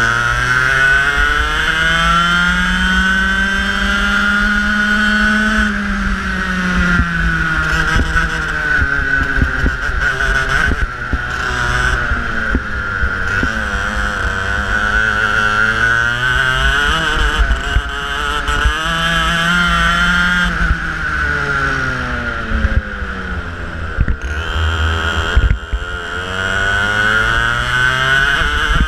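Racing kart engine recorded on board at close range, running hard; its pitch climbs as the kart accelerates and drops as it slows for corners, several times over.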